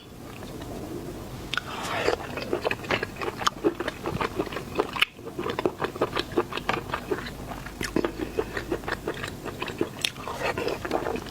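Close-miked eating of seafood: crunching and chewing, with a dense run of quick, sharp cracks and clicks.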